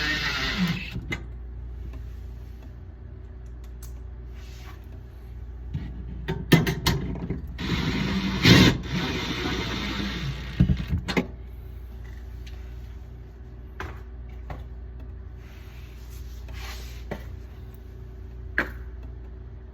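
Hands working on refrigerator parts: rubbing and scraping with sharp clicks and knocks, busiest from about six to eleven seconds in, then a few single clicks, over a steady low hum.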